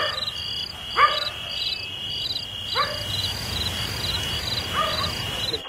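Crickets chirping in an even rhythm, just under two chirps a second, over a steady high insect trill. Four short sounds that sweep up in pitch stand out over the chirping, the loudest about a second in.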